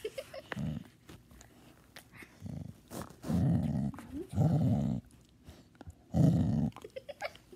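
A dog growling with a toy in its mouth, in five low bursts of about half a second to a second each; the loudest comes about six seconds in.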